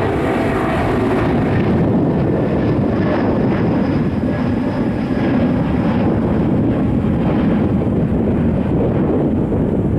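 Twin-engine jet airliner climbing out after takeoff: its jet engines make a steady low rumble, with a whining tone that fades over the first second or two.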